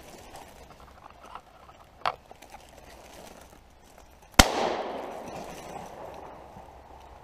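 A double-barrelled shotgun fires a single shot at a passing wood pigeon, and the report echoes and dies away over a couple of seconds. About two seconds before the shot there is one short, sharp click.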